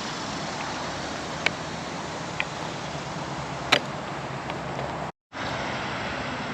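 Steady outdoor background hiss with a few light, sharp clicks, the loudest about four seconds in; the sound cuts out completely for a moment near the end.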